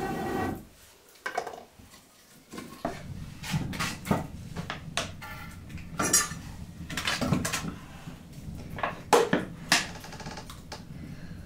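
Scattered sharp clinks and knocks of an iron wok and metal cooking pots being handled over an open wood fire, with a ringing metal knock about six seconds in, over a low steady noise.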